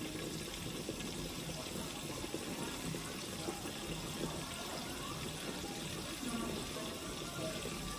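White snapper frying in hot oil in a cast-iron skillet: a steady sizzle.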